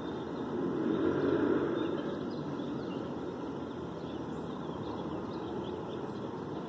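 Steady rumble of city traffic that swells briefly about a second in, as a vehicle passes, with faint high bird chirps over it.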